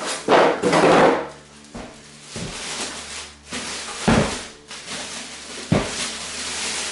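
Plastic packaging around a PC case being handled: rustling and crinkling in irregular bursts, with a few knocks, loudest in the first second.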